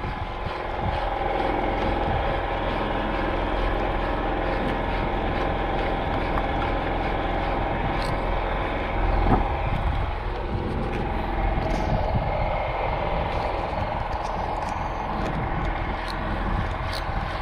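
An engine running steadily aboard a fishing boat: a constant drone with a steady hum, and a light knock about nine seconds in.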